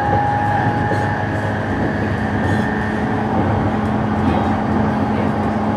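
Cabin running sound of a JR East E233 series electric train, heard inside the motor car MoHa E233: a steady rumble. Faint whining tones fade out about three seconds in, and a low hum comes in about halfway.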